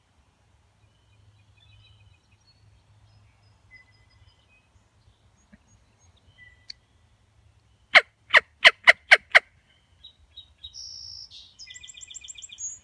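Six loud turkey yelps in quick succession, about four a second, over faint birdsong. About two seconds later a songbird sings high, rapid trills.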